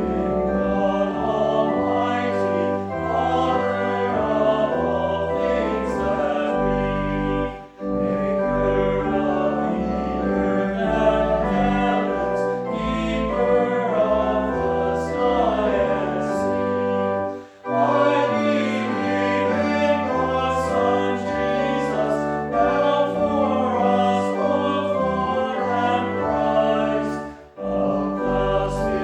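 Choir singing a hymn with organ accompaniment, in long sustained phrases with brief breaks between them about every ten seconds.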